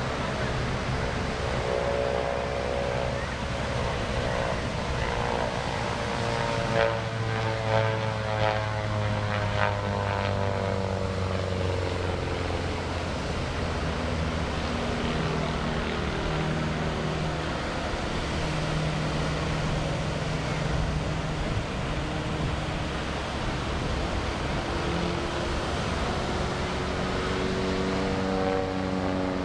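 Pitts biplane's piston engine and propeller droning as the plane flies aerobatics. The pitch falls steeply as it passes about seven to twelve seconds in, and climbs again near the end. A few short, louder bumps come around seven to ten seconds in.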